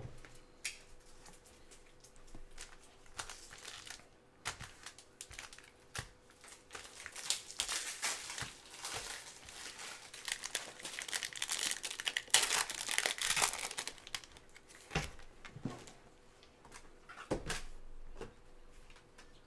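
Foil wrapper of a 2023 Topps Tier One baseball card pack crinkling and tearing as gloved hands open it, loudest in the middle. A couple of short knocks near the end as cards are set down on a stack.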